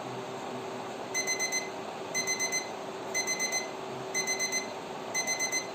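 Electronic alarm beeping in bursts of four quick beeps, a burst every second, starting about a second in, over a steady hum.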